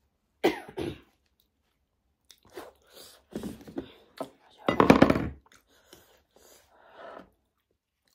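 Two short blows of the nose into a tissue about half a second in, then scattered knocks and rustles of dish handling as a serving casserole lid is lifted, with the loudest burst about five seconds in.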